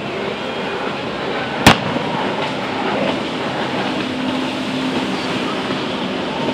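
Outboard motorboats and jet skis running out on the river, a steady engine drone mixed with wind and water noise. A single sharp, loud bang cuts through about a second and a half in.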